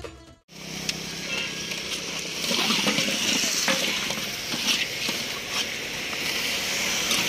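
Food frying in hot oil in a large iron karahi: a steady sizzling hiss, with occasional clicks and scrapes of a long metal ladle stirring the pan.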